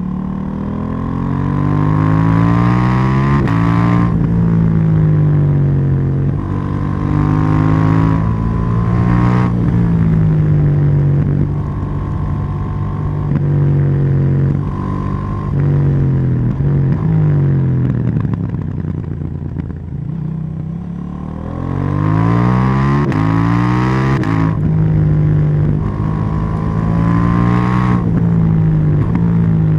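KTM 790 Duke's parallel-twin engine pulling hard through the gears, its pitch climbing and dropping back at each upshift. About two-thirds of the way through it eases off and the revs fall, then it accelerates through the gears again.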